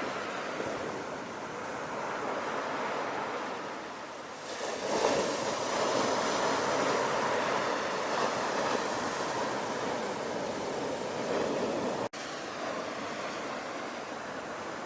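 Sea waves breaking and washing on the shore. A wave breaks about five seconds in and its surf runs on loudly for several seconds. The sound drops out for an instant about twelve seconds in, then a softer steady wash follows.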